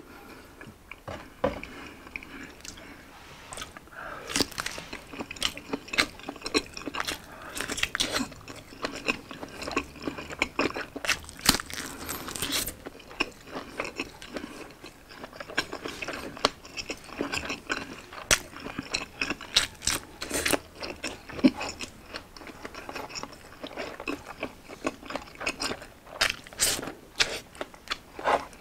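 A man biting into and chewing a Hungarian sausage and rice, with many short, irregular mouth clicks and a few louder bites.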